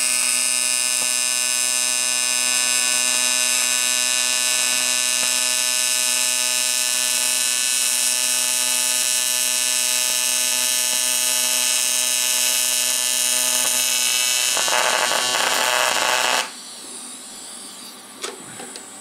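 Stick-welding arc buzzing steadily, turning rougher and crackly for the last couple of seconds of the weld before cutting off suddenly about 16 seconds in as the arc is broken.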